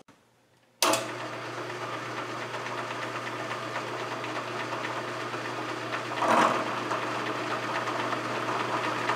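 Milling machine spindle running steadily with an end mill fitted, setting up to face off a brazed cast-iron hub. The hum starts abruptly about a second in, and a brief louder noise comes about six seconds in.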